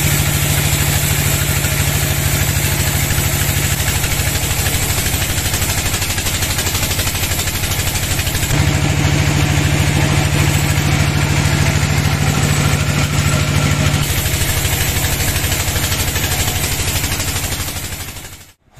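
Band sawmill running, its vertical band blade cutting lengthwise through a log over a steady low drone from the saw's drive. The sound cuts off suddenly near the end.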